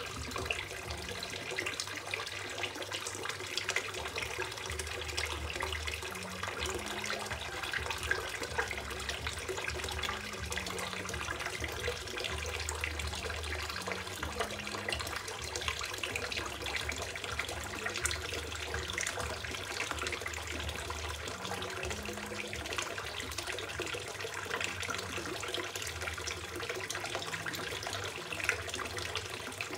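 Water pouring from a fountain spout and an inlet pipe into a small garden fish pond, splashing steadily.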